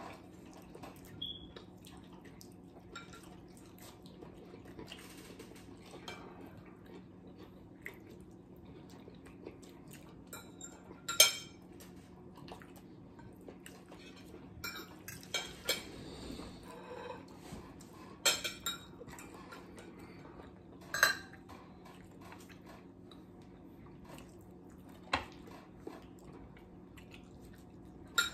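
Forks clinking and scraping on plates during a meal: scattered light clicks, a few sharper clinks, over a faint steady low hum.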